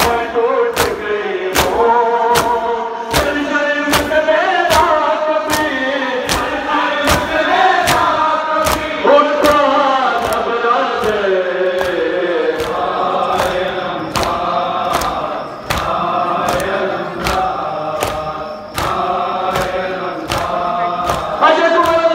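A noha chanted by a crowd of men's voices in unison, with the mourners' matam (open hands striking bare chests) slapping in a steady beat about twice a second.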